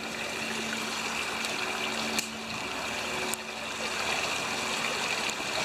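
Creek water rushing steadily down a concrete channel, an even hiss of moving water, with a few faint clicks.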